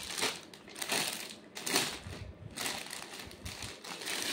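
Clear plastic packaging around a folded suit crinkling and rustling as it is handled, in a run of separate rustles.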